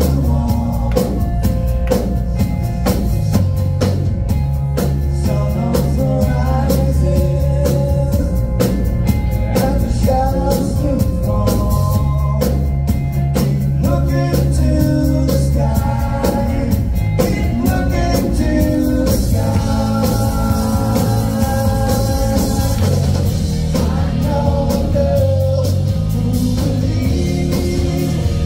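Live rock band playing: electric guitars and drum kit with steady low bass notes and a sung vocal line, heard through the club PA.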